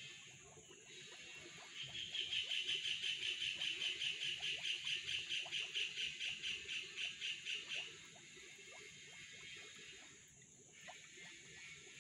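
A high-pitched animal call made of rapid even pulses, about four or five a second, starting about two seconds in and stopping about six seconds later. Under it, faint water splashing with small ticks.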